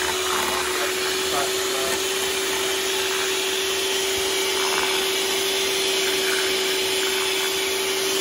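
Electric whisk running steadily in Yorkshire pudding batter. Its motor gives one constant hum under a loud, even whirr.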